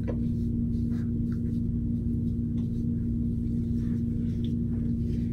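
A steady low droning hum holding one tone.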